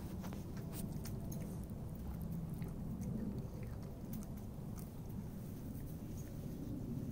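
A cat chewing wet cat food from a plastic bowl: a steady run of small, sharp chewing clicks.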